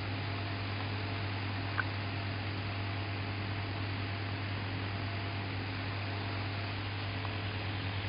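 Small electric motor spinning the persistence-of-vision clock's arm, a steady hum over a hiss, with one faint click about two seconds in.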